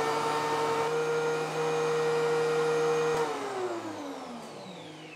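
DeWalt 735 thickness planer running at speed with no board in it, its chip-ejection fan blowing through the dust hose. About three seconds in it is switched off with a click, and the cutterhead and fan wind down, the pitch falling and the sound fading.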